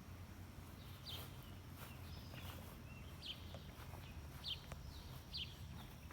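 A bird calling over and over outdoors: short, quick downward chirps, roughly one a second, over a steady low background rumble.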